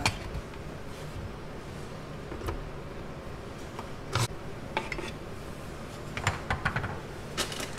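A few light knocks and clinks of a blender jar and its lid being handled, over a faint steady hum.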